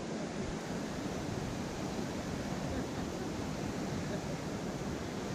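Steady rushing of a fast-flowing river spilling over a low dam, an even, unbroken wash of water noise.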